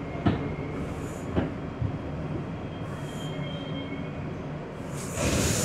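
R62A subway car rolling slowly into a station: a steady rumble with three sharp clanks from the wheels and couplings and a faint high brake squeal. Near the end a loud hiss of air comes in as the train comes to a stop.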